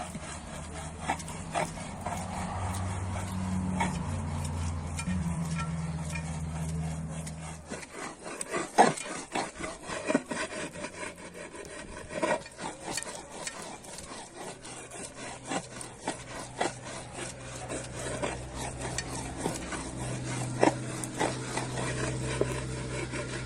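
Scraping and rubbing from hands preparing food, with irregular sharp clicks and knocks that grow frequent about a third of the way in. A low steady hum runs under the first third and stops.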